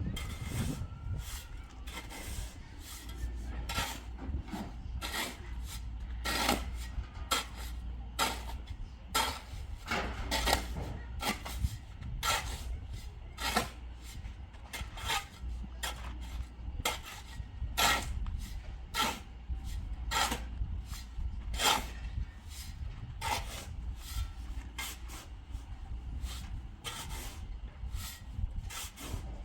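Repeated short scraping strokes, coming irregularly about one or two a second, over a low steady hum.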